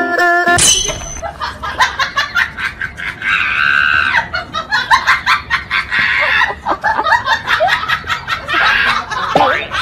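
People laughing hard, a rapid run of giggling pulses with high-pitched shrieks of laughter in several stretches.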